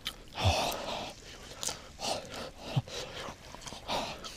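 A man eating hot fish and chips with a fork from a frying pan: chewing sounds and a few light clicks, with two short low vocal sounds, about half a second in and nearly three seconds in.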